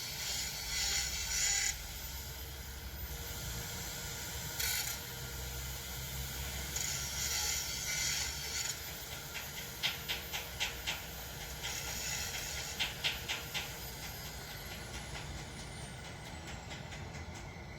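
Motor oil being poured from a container into a car engine's oil filler neck. It makes a hissing pour that comes and goes, with runs of light clicks about ten seconds in and again a few seconds later.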